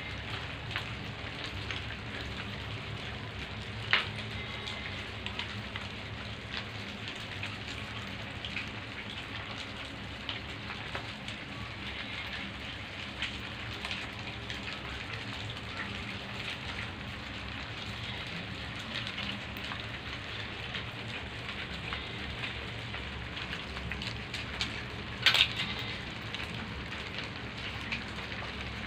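Hundreds of hermit crabs crawling over one another in a heap, their shells clicking and scraping together in a dense, steady crackle, with a sharper knock about four seconds in and another near the end.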